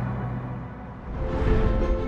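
Background soundtrack music with held low notes, swelling louder with a deep low rumble in the second half.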